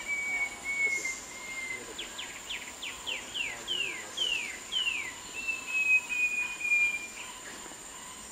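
Short-tailed babbler singing. A long, slightly falling whistle is followed about two seconds in by a run of about ten quick down-slurred notes that grow slower and longer, then another long whistle. A steady high insect drone runs underneath.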